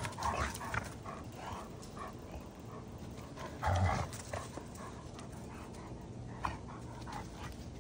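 Two dogs moving about on sandy ground, with a short, louder dog vocalization about four seconds in and a few scattered short scuffs and clicks.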